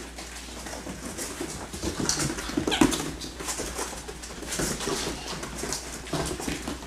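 A litter of six-week-old Labrador Retriever puppies playing and scuffling, with small yelps and growls. A short high yelp about three seconds in is the loudest.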